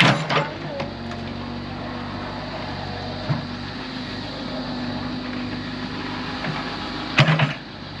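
Small crawler excavator's diesel engine running steadily under digging load. Brief voices cut in at the start and about seven seconds in.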